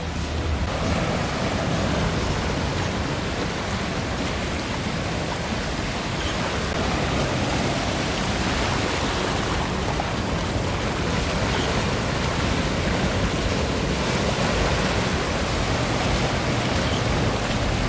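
Small waves breaking and surf washing over sand in the shallows: a steady rushing noise.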